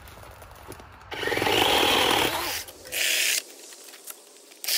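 DeWalt 12-inch cordless electric chainsaw run in sharp trigger bursts as it cuts into brush and branches. There is a long burst about a second in, a shorter one about two seconds later, and a brief one at the end.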